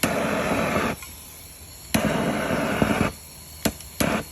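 A plumber's turbo torch flame hissing in two bursts of about a second each, each starting suddenly with a click as the torch is lit or the valve opened, with sharp clicks near the end.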